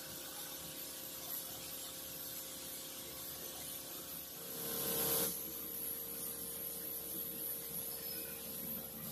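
Gravity-feed air spray gun spraying paint, a short hiss of air and paint about halfway through, over a steady electrical hum.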